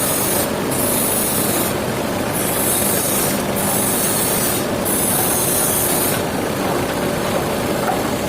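A sawmill saw cutting steadily through a large hardwood log: a continuous, loud rasping noise, with a high hiss that comes and goes every second or so.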